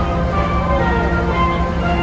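Music with a melody of held and gliding notes, over the steady low drone of the arriving fishing boat's engine.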